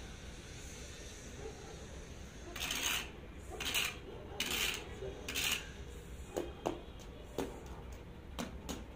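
A wooden stick scraped along a concrete floor four times in quick succession, each a short rasp, followed by a few light taps and knocks.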